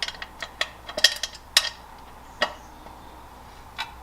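Light metallic clicks and clinks, about a dozen at uneven spacing, the loudest a second and a second and a half in, as a new air cleaner housing is pushed down and worked onto the carburetor without seating.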